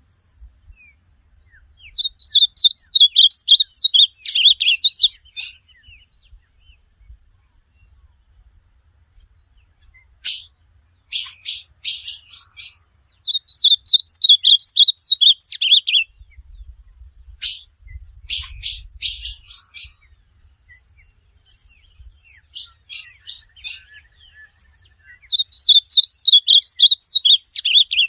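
Ultramarine grosbeak (azulão) singing: three short warbled phrases about eleven seconds apart, with series of sharp, quick chipping notes between them.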